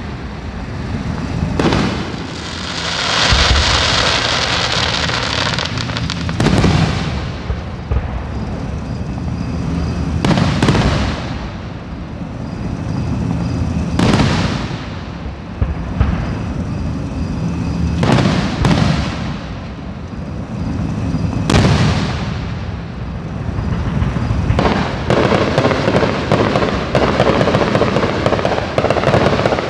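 Aerial firework shells bursting: a boom every three or four seconds, each followed by a rolling echo. The bursts come thicker with crackling near the end.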